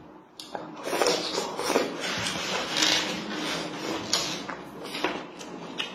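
Close-up eating sounds: chewing and wet mouth noises of rice and greens, with short clicks of wooden chopsticks, starting about half a second in.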